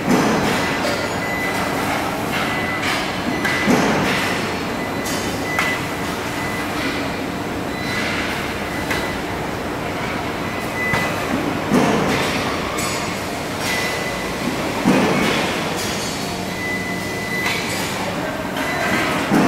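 Steady machinery noise of an automotive body-welding line, with a short sharp clank-and-hiss every few seconds from a robot's spot-welding gun working on stamped steel parts. A thin, high steady whistle comes and goes through it.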